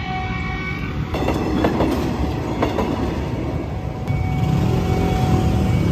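A train passing over a street level crossing, its wheels clacking over the rail joints for a couple of seconds, with a steady warning tone from the crossing signal. From about four seconds in, the engines of waiting motorbikes and scooters grow louder as the traffic gets ready to cross.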